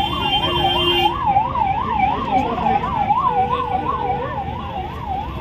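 A siren warbling rapidly up and down, about three to four times a second, over the chatter and shuffle of a crowd on foot.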